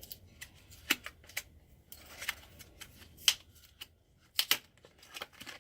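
Socket rail packaging being unwrapped by hand: an irregular run of sharp clicks and short crinkly rustles, with a couple of louder snaps partway through.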